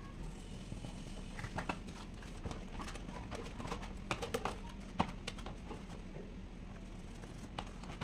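A Lasko fan's plastic blade assembly being handled and wiped with a damp cloth: cloth rubbing on plastic with irregular light clicks and knocks, most of them in the middle few seconds.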